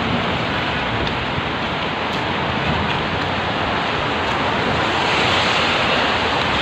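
Steady rain falling, with wind rumbling on the microphone.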